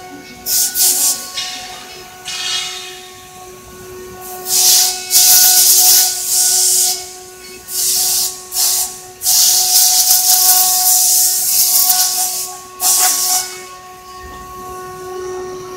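CNC router spindle running with a steady high whine, broken by repeated loud bursts of hissing noise, some brief and some lasting a couple of seconds.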